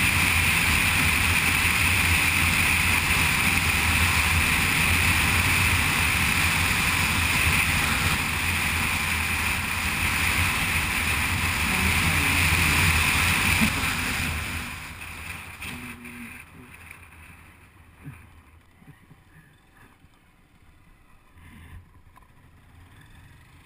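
Steady wind rush and the single-cylinder engine of a Honda CG 150 motorcycle running at road speed. About two-thirds of the way through the sound fades away to a faint low noise.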